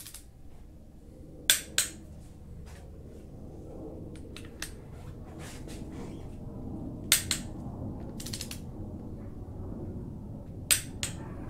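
Torque wrench clicking as VR6 cylinder head bolts are pulled up to 80 ft-lb: three sharp double clicks a few seconds apart, each marking a bolt reaching torque. Lighter ticks come in between as the wrench is moved on to the next bolt.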